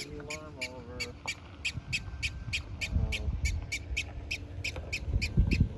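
Black-tailed prairie dog giving its alarm call: a steady run of short, high chirps, about four a second, warning of the dog nearby.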